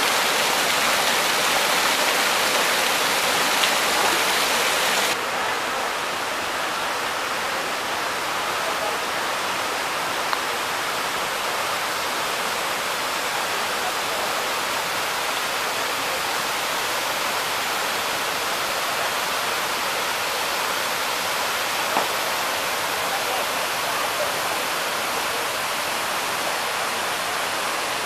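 Waterfall pouring over rock ledges into a pool: a steady rushing of water that dips slightly about five seconds in.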